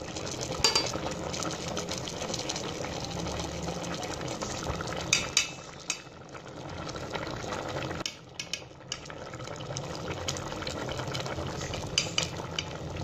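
A pot of chana dal and chicken simmering with a steady bubbling hiss, while a metal fork clinks against the pot a few times as chicken pieces are lifted out.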